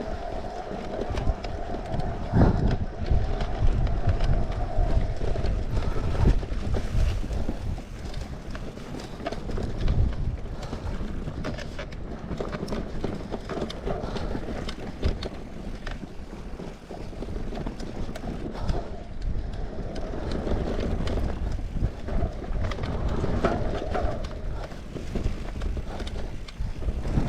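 Haibike Flyon carbon e-mountain bike ridden over rough ground, with a continuous rumble and many small clicks and rattles. This is the clattering the owner hears from the crank, pedal and handlebar areas of the carbon frame. Wind on the microphone.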